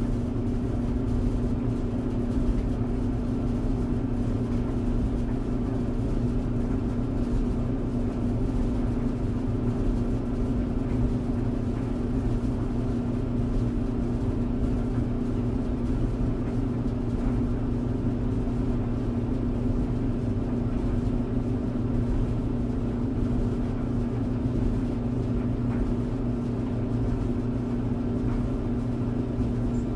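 Tumble clothes dryer running: a steady low hum and rumble from the turning drum and motor, with a softer hiss above it.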